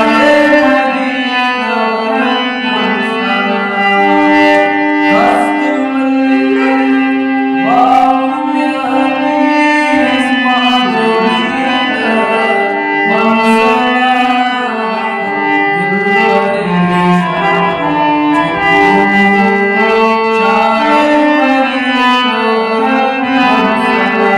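A man singing in a melodic devotional style, holding long notes and sliding between pitches with ornamented turns.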